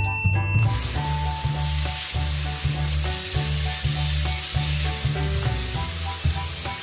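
Background music with a pulsing bass beat about twice a second, under a steady hiss that comes in just under a second in.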